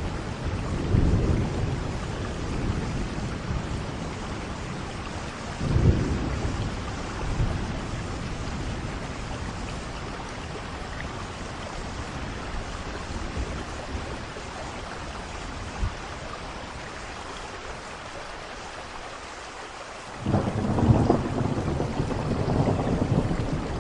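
Steady rain with thunder rumbling: low rumbles at the start, a short burst of thunder about six seconds in, then rain alone for a while before a heavy rumble breaks in suddenly near the end.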